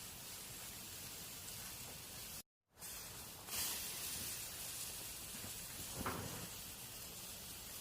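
Dosa cooking on a hot griddle (tawa): a steady high sizzle that drops out for a moment about two and a half seconds in, comes back louder about a second later, with a short tap about six seconds in.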